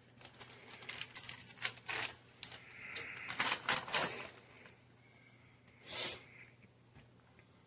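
A run of quick, irregular clicks and crackles as shredded cheese is spread by hand over a pizza, then one short hiss about six seconds in.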